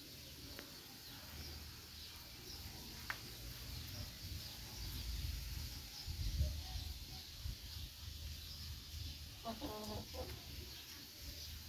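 Chickens clucking faintly over a low steady rumble, with a short run of clucks near the end.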